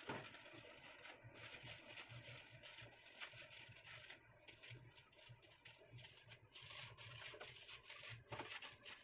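Aluminium foil crinkling as it is pressed and folded by hand over a flan mould, in faint, irregular crackles and rustles.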